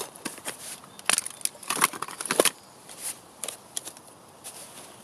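Rustling, crinkling and light knocks of camping gear and stuff sacks being handled and packed into a fabric rucksack, busiest in a flurry between about one and two and a half seconds in.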